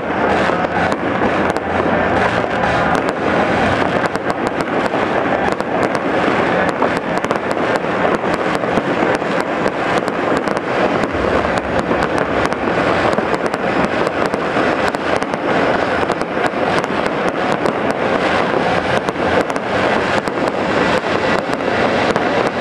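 Aerial fireworks display: a dense, unbroken barrage of shell bursts, bangs and crackling.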